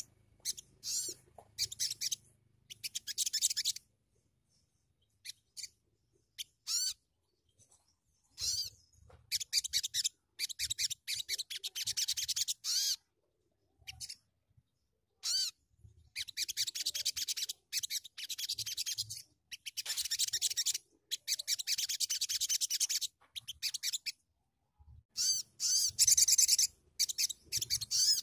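Male olive-backed sunbird (sogok ontong) singing: bursts of rapid high-pitched trills, each lasting up to a few seconds, with short pauses between them.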